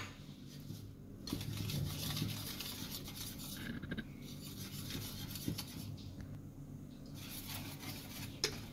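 Wire whisk stirring in a stainless steel mixing bowl, its wires rubbing and scraping against the metal as whole wheat flour and then pancake batter are mixed. A continuous rasping that starts about a second in, easing briefly a little past the middle.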